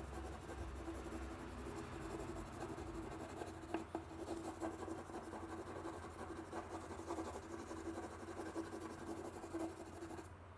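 Colored pencil scratching rapidly back and forth over watercolor-painted paper in steady shading strokes, fading out just before the end.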